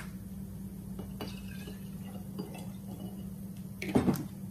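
A glass pasta-sauce jar with a little water in it is being handled: faint clinks and liquid sounds, then a louder cluster of knocks near the end. A steady low hum runs underneath.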